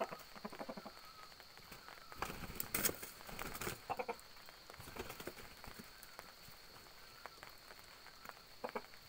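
Two roosters fighting: quick scuffles of feet in the dirt and wings flapping in short flurries, the busiest and loudest flurry about two to four seconds in.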